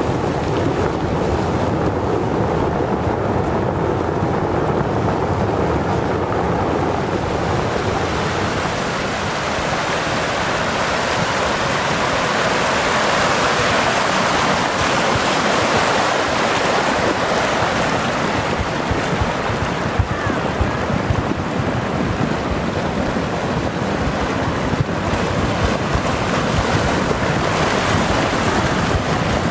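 Muddy flash-flood water rushing in a steady, continuous wash of noise, with wind buffeting the microphone.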